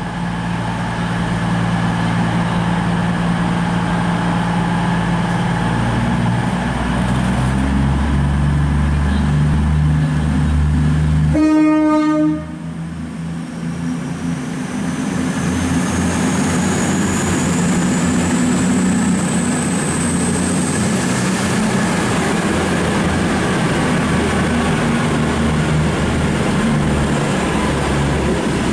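Virgin Trains Class 221 Super Voyager diesel-electric unit pulling into the platform, its underfloor diesel engines humming steadily, with one short horn blast about twelve seconds in. A faint high whine rises slowly after the horn.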